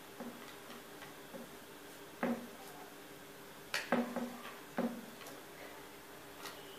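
A hair straightener's hot plates clamped on a thermal-paper receipt as it is pulled through, giving about six sharp clicks and ticks, spaced irregularly from about two seconds in.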